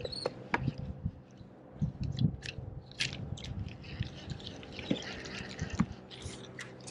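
Close handling noises of casting and retrieving a fishing lure: irregular clicks, taps and small crunchy rattles from the rod and reel, over a faint steady hum.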